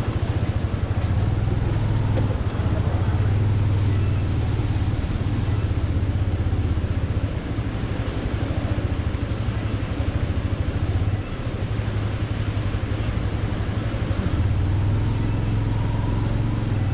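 Motorcycle engine running steadily under way, a low drone that eases off for a few seconds midway and then picks up again.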